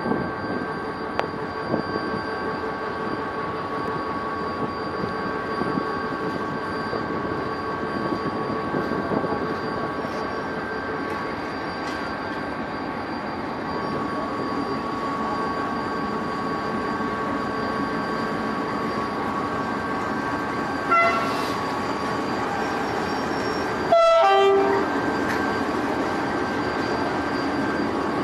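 Diesel-electric locomotive running slowly with a steady engine drone and a high steady whine. It gives two short horn sounds, about three seconds apart near the end, the second louder.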